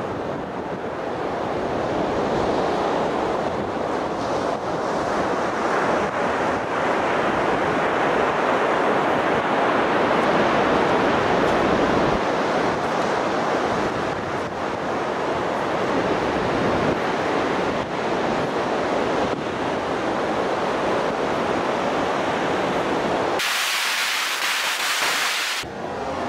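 Wind buffeting the microphone over breaking surf: a steady, loud rushing noise. Near the end the low rumble cuts out suddenly for about two seconds, leaving a brighter hiss, then comes back.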